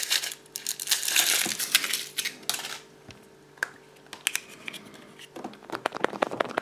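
Foil wrapper of a chocolate Kinder Surprise egg crinkling as it is peeled off, then the thin chocolate shell cracking apart with a single sharp snap. A run of small clicks and taps follows near the end.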